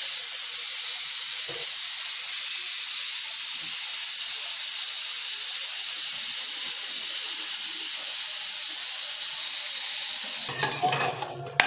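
Aluminium pressure cooker letting out its steam through the whistle vent with a loud, steady hiss as the pressure is released before opening. The hiss cuts off suddenly near the end, followed by a few metal clinks.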